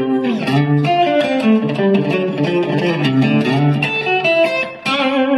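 Instrumental guitar music: an outro tune of plucked notes, with a brief dip in loudness near the end.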